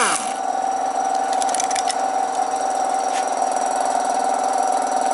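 A motor running steadily with a strong high hum and several overtones, its pitch sliding down briefly right at the start; it cuts off abruptly near the end.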